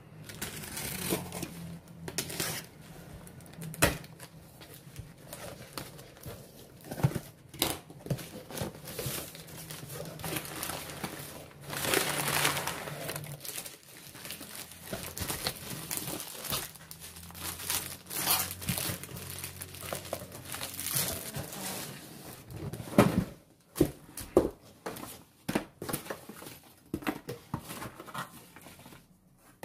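A cardboard shipping box being unpacked: a box cutter slitting the packing tape, cardboard flaps pulled open, and packing material crinkling and rustling as boxed items are lifted out, with scattered knocks as things are set down on a table.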